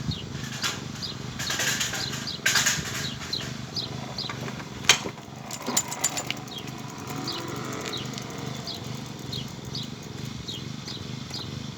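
Plastic bottle fixed to a bicycle, slapped by the turning spokes as the bike rolls, giving a fast, continuous flapping rattle meant to imitate a motorbike engine.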